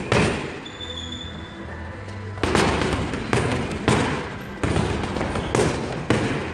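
Boxing gloves punching a hanging teardrop punch bag: sharp thuds at uneven intervals, about seven hard hits with a cluster in the second half, over background music.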